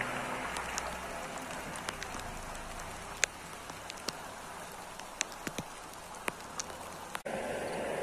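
Renault Kiger's engine fading within the first second or so as the SUV pulls away over a wet grassy track. After that there is a steady hiss of light rain with scattered sharp raindrop ticks, and the background changes abruptly near the end.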